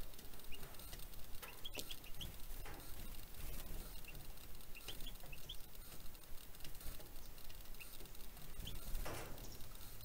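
Small songbirds giving short, high chirps in scattered little groups, with light tapping and pattering as they peck and hop on a mesh feeding tray. Near the end there is a brief rustle.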